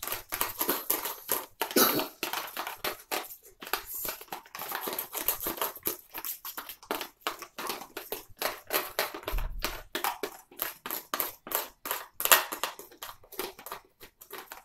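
Spoons stirring and scraping food-coloured glue in plastic containers: quick, irregular clicks and scrapes, several a second, with a sharper knock about two seconds in and another near twelve seconds.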